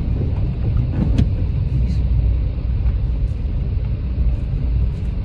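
Steady low rumble of a car's engine and road noise inside the cabin while driving, with a single sharp click about a second in.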